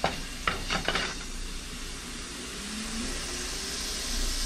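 Hot cooking oil hissing in a wok as it heats, the hiss growing louder toward the end, with a few taps of a wooden spatula against the pan in the first second.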